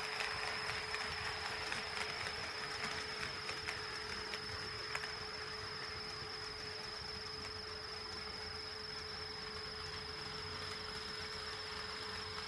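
HO-scale model train rolling on KATO Unitrack, its wheels ticking over the rail joints, its running noise fading away over the first five seconds or so. A steady high whine and a lower steady hum run under it.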